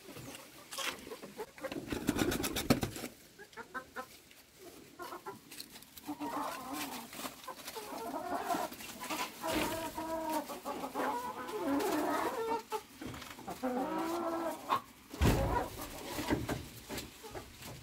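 Young chickens clucking and calling again and again, their calls bending up and down in pitch. In the first few seconds a wire-mesh wooden gate rattles and clicks as it is opened, and a loud thump with some clatter comes near the end.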